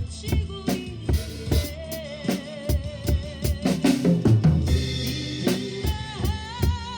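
Acoustic drum kit played along to a recorded song with a melody line: a steady beat of kick and snare, then a fill stepping down through the toms about four seconds in, followed by a cymbal crash.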